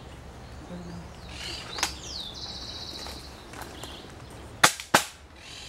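5.5 mm air rifle firing: two sharp cracks about a third of a second apart near the end. Small birds chirp and trill in the trees before it, with a single click about two seconds in.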